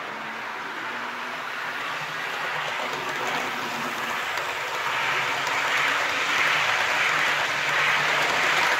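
Eight-car Hornby OO gauge model Eurostar running on the layout track, its wheels giving a steady rushing noise on the rails with a faint low motor hum underneath. The noise grows louder through the second half as the coaches pass close by.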